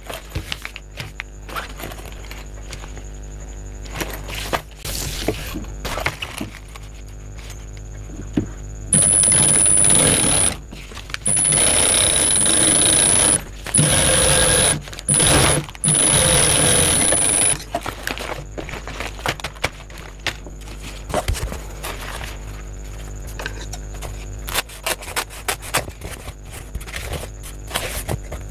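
Primex high-speed industrial lockstitch sewing machine stitching bag fabric in five short runs, bunched from about a third of the way in to past the middle. Each run carries a steady high whine and starts and stops abruptly. Before and after the runs, fabric is handled with scattered clicks and rustling.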